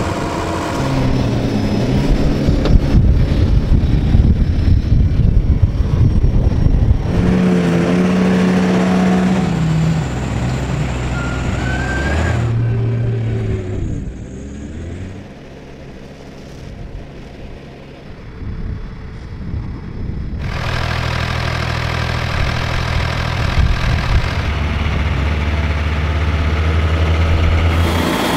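Large farm tractor engines running hard and revving in deep mud, the sound changing with each short clip, with a quieter stretch in the middle.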